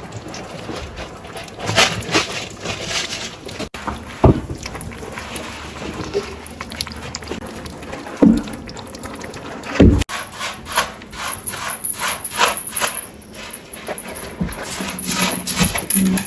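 Kittens eating meat: a run of wet chewing and smacking clicks at an irregular pace, with a few dull thumps.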